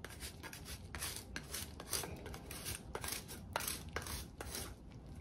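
Parmigiano Reggiano being grated on a handheld metal grater: faint, quick scraping strokes, a few a second.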